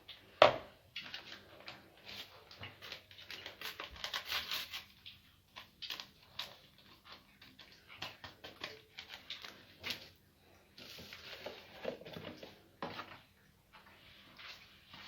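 Spoon working thick cake batter in a bowl: irregular scraping and clicking against the bowl, with one sharp knock about half a second in.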